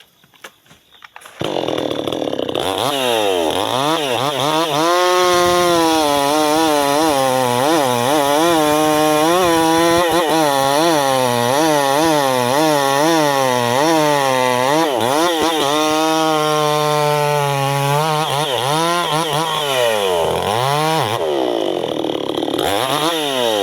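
Chainsaw cutting through sengon wood, its engine pitch dipping and rising again and again as the chain bites and frees. It starts about a second and a half in and stops near the end.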